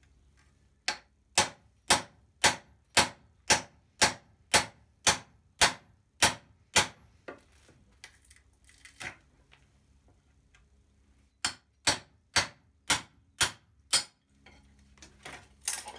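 Hammer blows on wood, about two a second: a run of a dozen strikes, a pause with a few lighter knocks, then six more strikes near the end.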